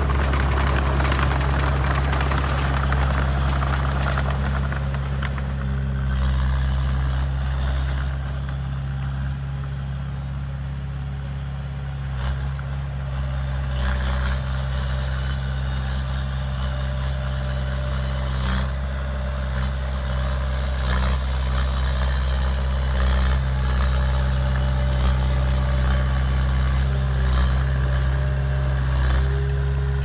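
Diesel engine of a small Komatsu D20A crawler bulldozer running steadily as it pushes soil, with a few brief clanks from the machine.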